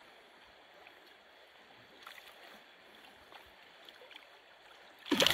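Faint steady rush of river current, then a sudden loud splash near the end as the hooked steelhead thrashes at the surface close to the angler.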